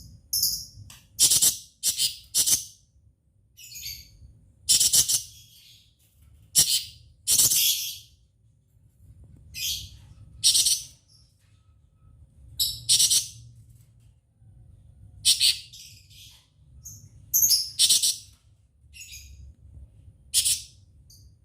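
Cucak cungkok bird giving short, loud, high-pitched calls in separate bursts every second or two, an odd, varied string of notes, over a faint low hum.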